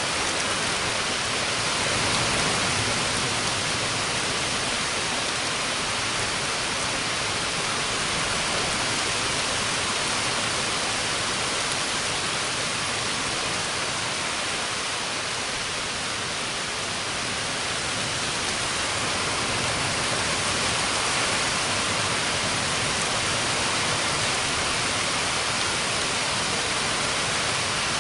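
Heavy rain falling steadily in a thunderstorm, an even hiss of rain with no thunder heard.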